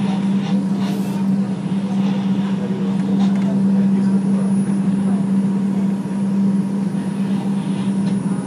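R142 subway train running at steady speed on elevated track, heard from inside the car: steady wheel-on-rail noise with a steady low hum and a few faint clicks.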